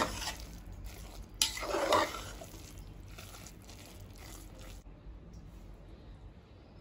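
A ladle stirring and scraping cooked rice in a metal pressure cooker pot, with a sharp knock against the pot about a second and a half in. The sound grows fainter after about five seconds.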